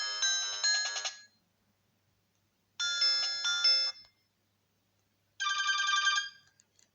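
Nokia 108 mobile phone playing its built-in tones through its small speaker, one after another. First the tail of a melodic tone that stops about a second in, then a short melody of about a second, and near the end a brief rapid trilling tone.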